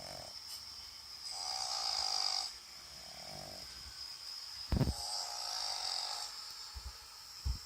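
A pug snoring in repeated breaths, one snore about every one and a half to two seconds. Two short low thumps come in the second half.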